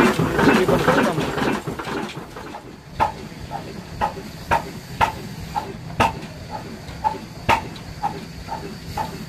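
Old single-cylinder diesel 'black engine' running. Its loud clatter fades about two seconds in, leaving the slow exhaust beat: regular puffs about two a second from the exhaust pipe, with a sharper crack on some beats, over a low steady hum.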